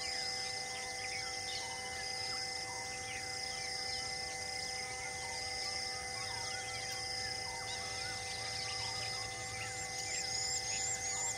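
Forest ambience: many birds calling with short falling chirps, over an insect's high buzz repeating in regular pulses about once a second, with a faint steady hum beneath.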